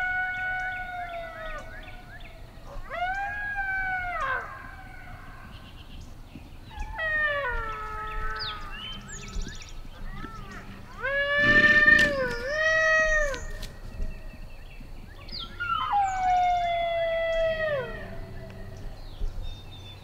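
FoxPro X2S electronic game caller playing recorded coyote howls: five long howls in a row that rise, hold and fall, the loudest about twelve seconds in.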